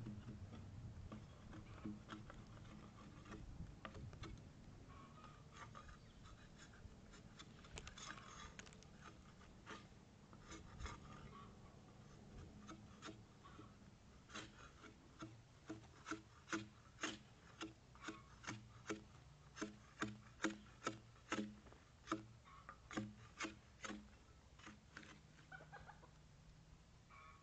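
Hand tool scraping bark off a log in short, rhythmic strokes, about two a second, for most of the second half.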